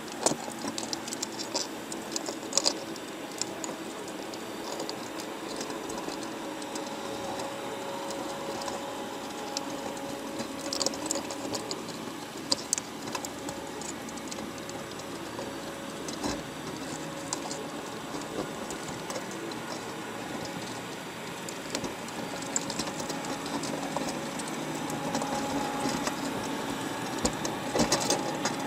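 Underwater sound inside a crab pot on the sea floor: a steady low hum with scattered sharp clicks and crackles. The clicks come in small clusters, the busiest near the end, as crabs climb and feed against the wire trap.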